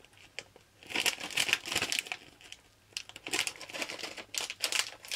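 Plastic snack packet of Morinaga Bake White being handled and opened, crinkling in two stretches of dense crackling: one starting about a second in, the other about three seconds in.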